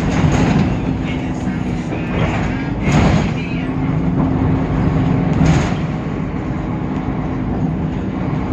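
Temsa Avenue LF city bus under way, its DAF PR 228 diesel engine and ZF automatic gearbox running with a steady hum over road rumble. Louder rattling jolts come about three and five and a half seconds in.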